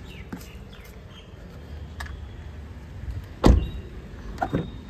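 Maruti Suzuki Swift Dzire's front door shut with a heavy thump about three and a half seconds in, then a smaller thud and click about a second later as the rear door handle is pulled to open the back door.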